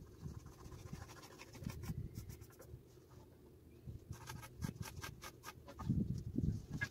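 Pencil scratching on a pallet-wood board as an outline is traced around a hatchet, in a run of quick short strokes that is busiest about four to five seconds in. Some low bumps come near the end.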